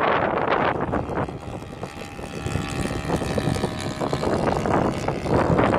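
A radio-controlled Piper Cub's 160-size twin-cylinder four-stroke nitro engine running steadily in flight, its even drone clearest in the middle, under heavy wind buffeting on the microphone.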